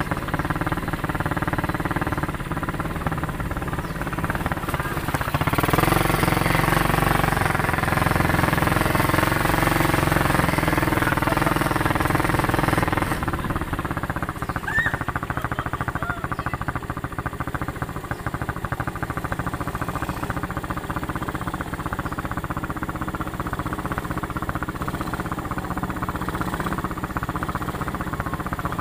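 ATV engine running, its pitch rising about five seconds in as it revs. It stays louder under throttle for several seconds, then settles back to a steadier, lower run.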